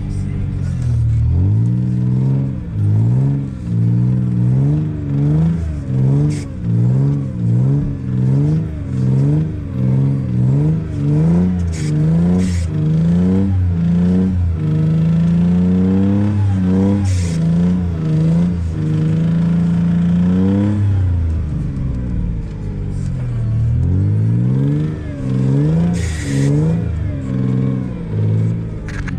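Toyota 3.4-litre 5VZ V6 engine revved up and down over and over, about once a second, then held at high revs for several seconds before rising and falling again, as the truck tries to work free in deep snow. The engine has a knock that the driver fears could be a rod.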